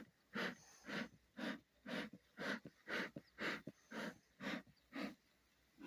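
Bee smoker bellows being pumped in a steady rhythm, about two short puffs of air a second. The smoker is not yet smoking properly: its fuel has not caught.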